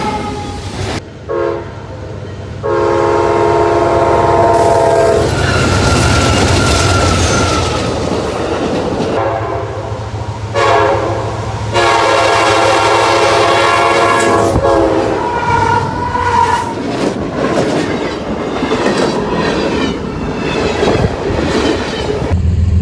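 Freight trains passing at close range, wheels rumbling and clattering over the rail joints. A diesel locomotive's multi-chime air horn sounds long blasts several times, about three seconds in and again near the middle.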